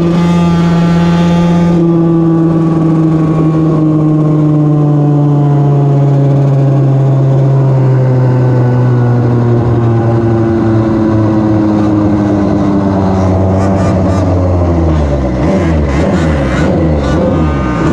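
A Goped scooter's small two-stroke engine running at high revs, its note sliding steadily down as the revs fall from about 10,700 to about 4,500 rpm. Near the end, other engines join it with shifting, overlapping notes.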